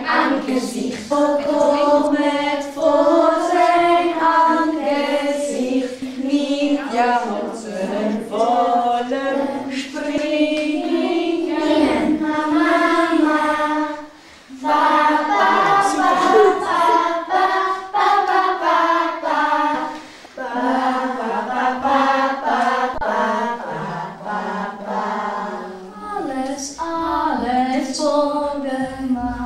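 A children's choir singing phrase after phrase, with a brief pause about fourteen seconds in.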